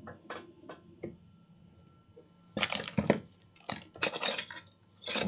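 Clicks and clattering from a hot glue gun being handled: a few light clicks at first, then louder rattling clusters from about halfway in and again near the end.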